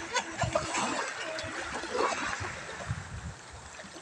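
Small waves lapping on a pebble shore: a steady wash of water with scattered soft splashes and low rumbles, gradually easing off.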